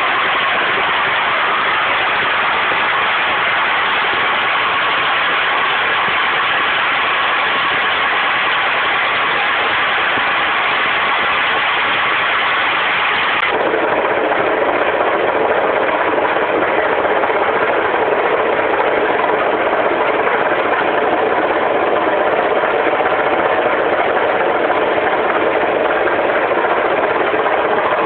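Gas jetting under pressure from an uncontrolled well blowout (open gas fountain), a loud, steady rushing noise. Its tone shifts abruptly about halfway through.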